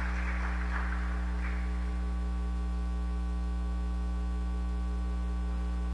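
Steady low electrical mains hum with a stack of overtones, with a spread of clapping fading out in the first second or two.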